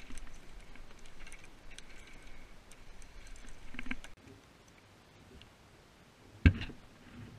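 Light tapping and clicking of herring and a sabiki rig being handled on wooden dock boards, then, about six and a half seconds in, a single sharp thump.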